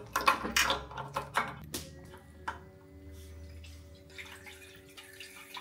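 Petrol being poured into a motorcycle fuel tank through a hose. It opens with a run of short clicks and knocks as the hose is handled at the filler neck, then settles into a faint, steady trickle of fuel.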